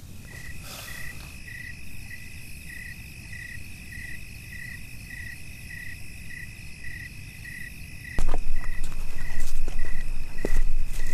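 Crickets chirping: a steady high trill with a regular chirp repeating a little under twice a second. About eight seconds in, a much louder low rumble comes in, with a few sharp knocks.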